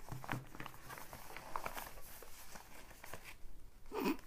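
Soft rustling of a fabric play mat with a plastic pouch being rolled up by hand, with scattered light clicks and taps from the small plastic toy pieces packed inside.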